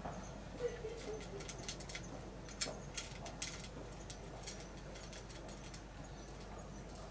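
A cat eating dry kibble from a metal dish: irregular crisp crunches and clicks, thickest in the first half and sparser towards the end.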